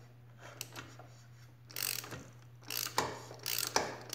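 Ratchet wrench clicking in short irregular bursts as a Kawasaki Z125 Pro engine with a freshly fitted 143cc big bore kit is turned over by hand, counterclockwise, to check its compression. Near-quiet with a couple of faint clicks at first; the clicking starts about a second and a half in.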